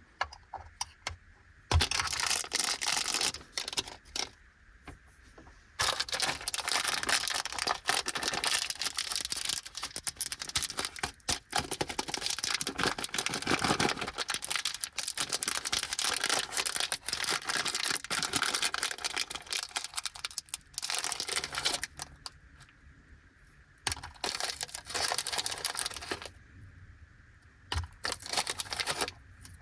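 Crinkly plastic snack packaging being handled and torn open by hand, including a bag of Anpanman bite-size biscuits. It makes dry crackling and rustling in long dense stretches, then shorter bursts with brief pauses between them near the end.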